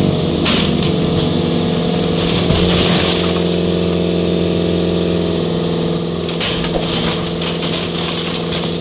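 Excavator engine running steadily close by, a continuous mechanical drone that eases slightly about six seconds in.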